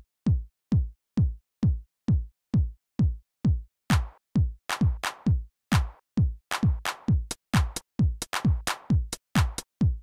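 Electronic dance music: a lone drum-machine kick drum on every beat, about two a second, each hit dropping in pitch. About four seconds in, snare and hi-hat hits join the beat.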